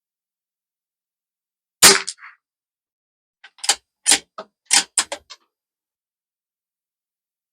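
One shot from a bolt-action .22 LR rimfire rifle firing Lapua Long Range ammunition, about two seconds in. This is followed a second and a half later by a quick run of sharp metallic clicks as the bolt is worked to eject the case and chamber the next round.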